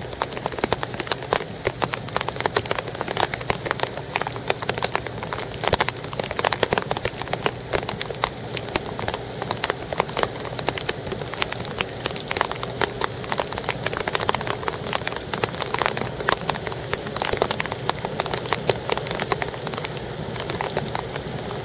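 Rain pattering densely and irregularly on a wooden boat and its gear close to the microphone, over a steady low hum.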